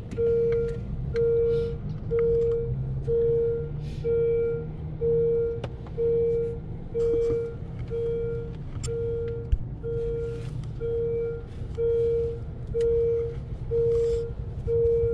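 Railway level-crossing warning signal sounding a single steady tone for about half a second, roughly once a second, warning that a train is coming. A low, steady engine and traffic rumble runs beneath it.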